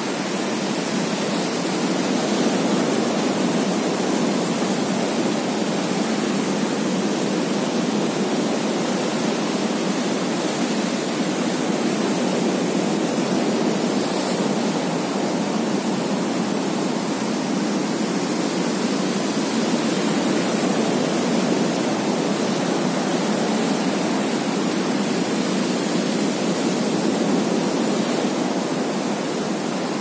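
Steady rush of ocean surf, small waves breaking and whitewater washing toward the shore.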